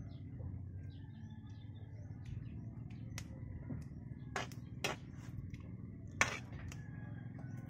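Metal spoon clinking against a frying pan while stirring cooked fern greens: a few sharp clinks, the loudest about six seconds in, over a low steady rumble.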